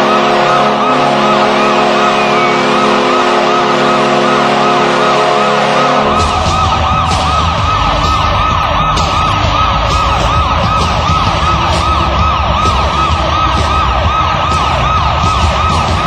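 Ice hockey goal horn: a loud, steady multi-tone horn blast with a fast-warbling siren over it. About six seconds in the horn stops, and the siren keeps warbling over goal music with a heavy bass beat.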